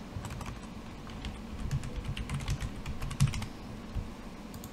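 Computer keyboard typing: a quick run of keystrokes, densest from about one and a half to three and a half seconds in, with a few single key clicks around it.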